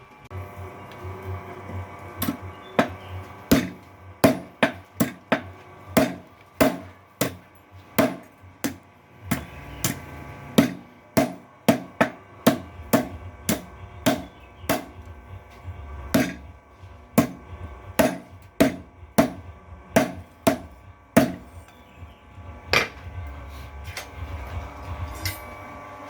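Blacksmith's power hammer on a test run, striking repeatedly at roughly two blows a second, each blow ringing metallically, over a low steady hum.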